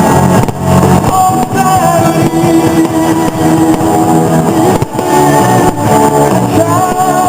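Rock music with singing and guitar.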